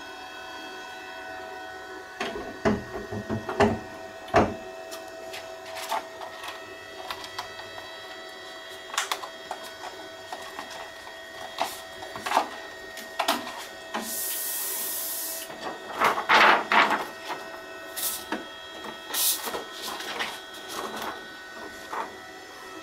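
Film roll being loaded into an open thermal film imagesetter: irregular knocks, clicks and rattles of handling inside the machine over its steady hum, with a loud cluster of knocks about two seconds in and another about sixteen seconds in. About fourteen seconds in a rushing hiss lasts about a second and a half.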